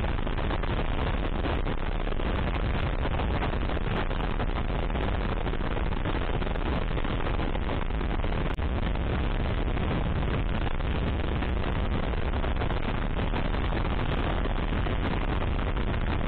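Steady wind noise buffeting the microphone on a moving dual-sport motorcycle, with the engine and road noise running underneath at an even level.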